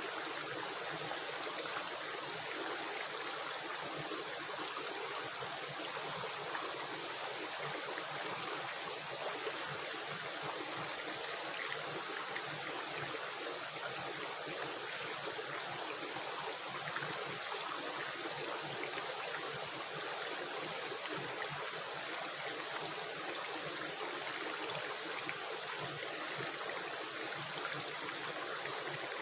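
Stream or small river running over rocks, a steady rushing and gurgling of water.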